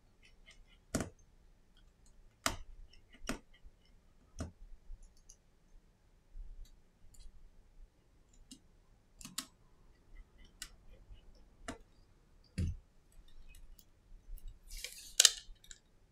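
Sparse small clicks and taps of a precision screwdriver and tiny metal parts being worked on the display assembly of an iPhone SE (1st gen), single sharp clicks a second or more apart. Near the end comes a brief crackle of plastic, the loudest sound, as the replacement display in its protective film is handled.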